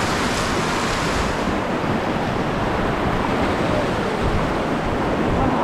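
Whitewater of river rapids rushing around a raft, a steady loud wash of noise, with wind buffeting the microphone.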